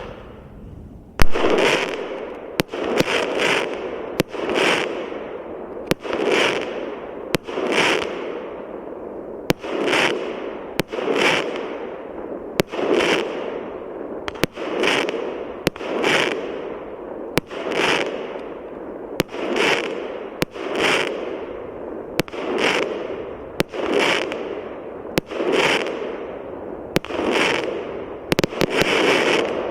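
Fireworks going off in a steady run of shots, roughly one a second. Each shot is a sharp bang followed by a fading hiss and crackle. The first, about a second in, is the loudest.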